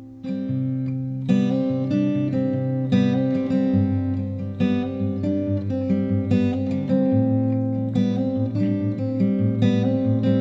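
Background music on acoustic guitar: chords plucked and strummed in a steady rhythm, coming in fuller about a second in.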